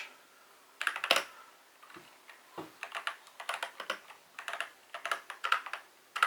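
Keys of an Attack Shark K75 mechanical keyboard being typed on: two sharp keystrokes about a second in, then a quicker, uneven run of key clicks from about three seconds in.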